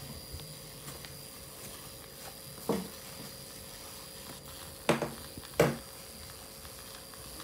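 Small LEGO WeDo 2.0 electric motor running with a faint steady whine as the fan robot drives, with three short, louder knocks in the second half.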